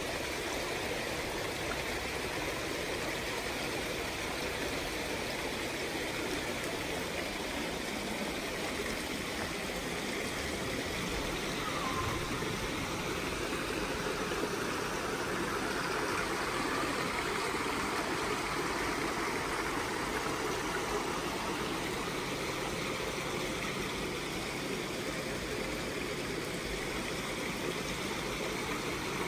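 Koi pond waterfall: water spilling steadily over a small rock cascade into the pond.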